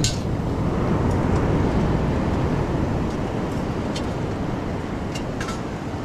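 Shallow surf washing over the sand, a steady rush of water with wind rumbling on the microphone, slowly easing off, with a few faint ticks.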